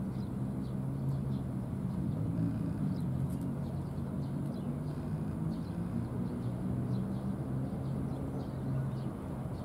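A steady low mechanical hum, like an engine running, with faint short high ticks scattered through it.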